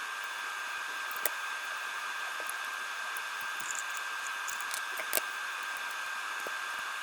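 Steady hiss with a faint high whine, broken by a few light clicks, including one about a second in and one about five seconds in.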